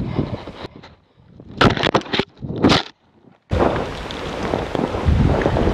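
Rumbling, then two short muffled rustling bursts of a camera being pushed through snow-covered brush. A moment later an even hiss of wind noise on the microphone sets in suddenly.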